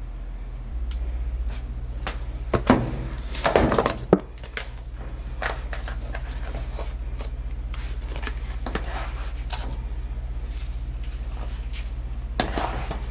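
Plastic laundry-detergent bottles and their caps clicking and knocking against a top-loading washing machine as detergent is poured in, with a cluster of louder knocks about three to four seconds in and another near the end. Under it runs a steady low hum.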